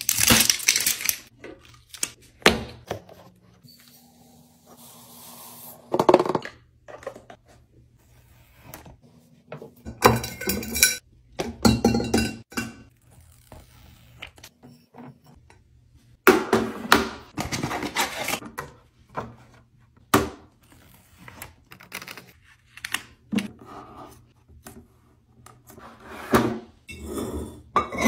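A series of separate handling noises: glass canisters and their glass lids clinking and knocking on a countertop, with rustling from a sheet of sticker labels as labels are peeled off.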